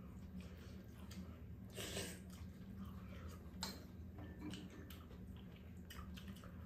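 Quiet eating sounds at a meal: chewing, with two short louder noises about two and three and a half seconds in, over a low steady hum.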